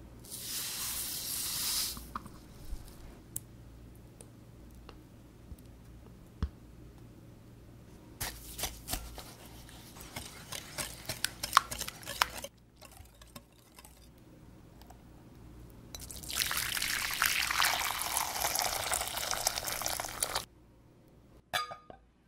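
Granulated sugar poured into beaten eggs in a glass bowl with a brief hiss, then a wire whisk stirring the egg mixture and clicking against the glass. Later comes a long hiss, and a couple of glass clinks just before the end.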